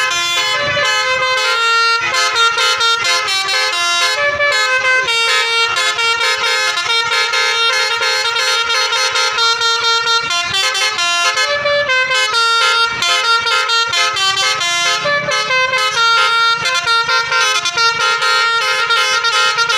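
Bus telolet horns: multi-tone musical horns playing tune after tune, the notes changing every fraction of a second, loud and almost without pause, with a few brief breaks between phrases.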